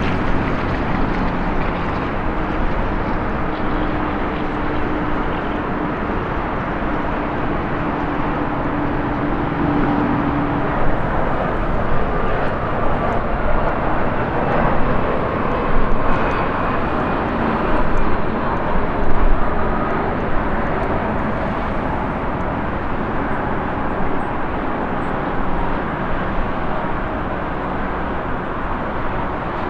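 Jet airliner engine noise: a steady roar that swells about halfway through, as a regional jet passes low on approach, then eases off again.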